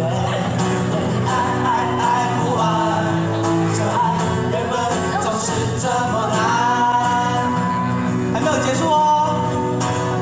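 A live band playing a song: a singer over acoustic guitar accompaniment.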